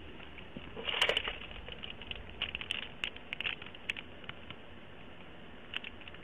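Irregular light clicks and rustling, handling noise on a police microphone, with a louder cluster about a second in and scattered ticks after; the sound is cut off above a narrow band, as through a radio microphone.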